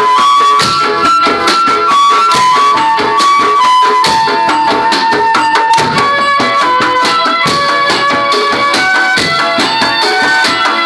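Indonesian patrol street-band music: a melody of held notes over rapid, dense beating on hand-held percussion tubes and drums.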